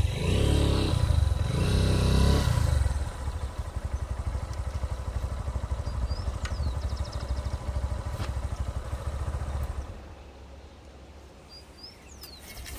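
Small motorcycle engine running at low speed, louder for the first couple of seconds, then running steadily with a regular pulse before it drops away about ten seconds in.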